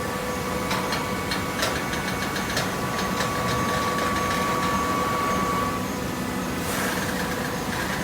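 Waste-paper baling machine running: a steady mechanical hum with a held tone that stops about six seconds in, sharp clicks and knocks during the first few seconds, and a short hiss near the end.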